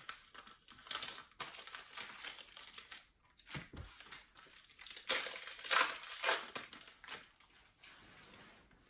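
Panini Prizm basketball card pack wrapper crinkling and tearing as it is opened by hand, in irregular rustling bursts that are loudest about five to six and a half seconds in.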